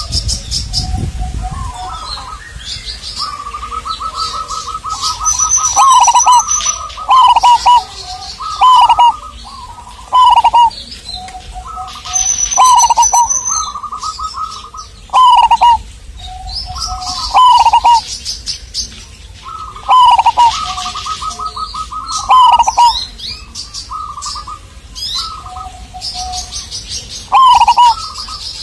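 Pulanggeni perkutut (zebra dove) cooing over and over: each phrase is a quick run of stuttering notes ending in a few falling coos, repeated every couple of seconds. Small birds chirp faintly and high in the background.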